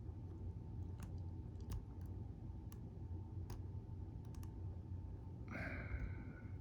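Tubular cam lock being picked: a handful of faint, sharp clicks about a second apart as the pick probes and sets the pins one at a time.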